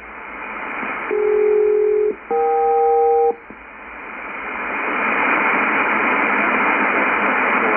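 SELCAL selective-calling tones from an HF air-traffic-control ground station, received in single sideband on a shortwave receiver. Two steady pulses of about a second each, each a pair of tones played together, with a short gap between them: a SELCAL check calling the aircraft. Shortwave static hiss then grows louder.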